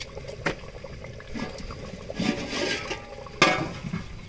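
Cooking liquid sloshing and bubbling in a clay cooking pot, with a sharp knock about three and a half seconds in and a lighter one near the start.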